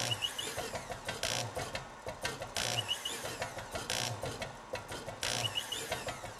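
MIDI-controlled household appliances and power tools playing a tune: their motors buzz out short pitched melody notes while a hissing burst with a low thump marks a steady beat about every 1.3 seconds.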